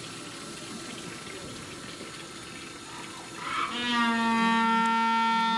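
Steady running water, then about three seconds in a Humboldt penguin starts its braying call: a note that rises and then holds as one long, loud tone.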